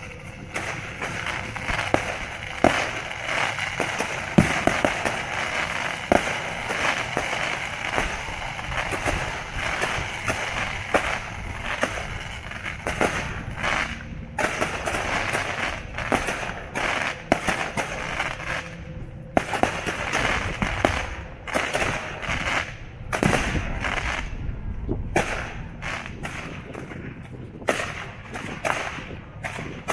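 Fireworks display: aerial shells bursting in quick succession, a dense run of bangs and crackling with a few louder bangs among them.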